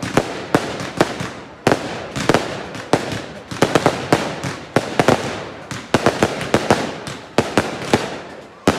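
Fireworks display: aerial shells bursting in a dense, irregular string of sharp bangs, about two or three a second, with a steady hiss between them.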